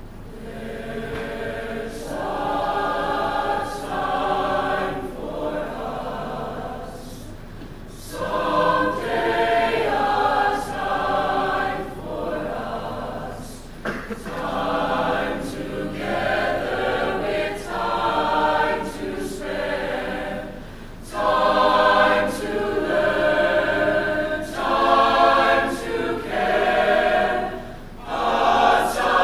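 Teen mixed-voice choir singing, in phrases a few seconds long with short breaths between them, louder in the second half.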